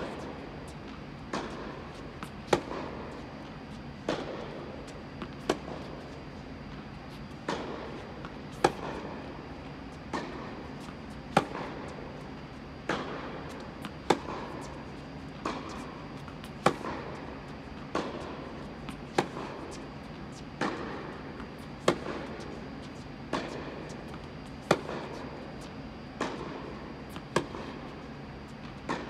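Tennis rally on an indoor court: sharp racket-on-ball strikes about every second and a half, with the near player's forehands and backhands loud and the far player's returns softer, each followed by a short echo under the dome. A steady hum runs underneath.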